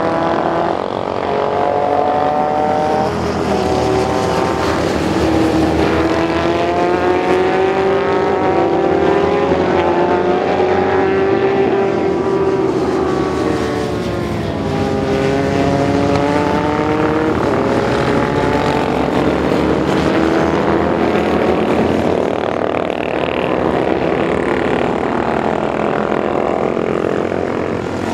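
Several classic racing motorcycle engines at high revs, their pitch repeatedly rising and falling as the bikes accelerate, change gear and pass by, with more than one engine heard at once.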